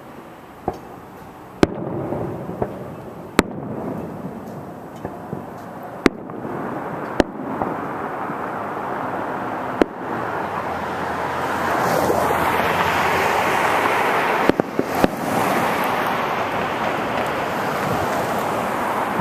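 Fireworks shells bursting overhead: a series of sharp bangs a second or more apart, with three in quick succession about three-quarters of the way through. Behind them a steady rushing noise grows louder from about seven seconds in.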